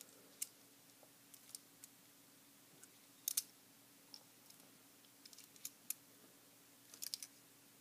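Faint, scattered clicks and taps of a small die-cast toy train engine being handled and turned over in the fingers, the loudest a quick double click about a third of the way in, over a faint steady hum.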